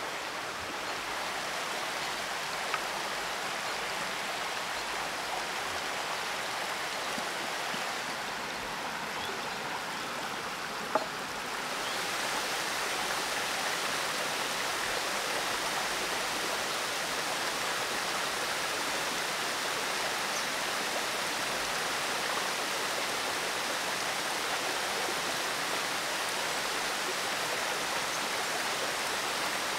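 A forest stream running steadily, its rush growing louder and brighter about twelve seconds in. A faint click comes about three seconds in and a sharper one at about eleven seconds.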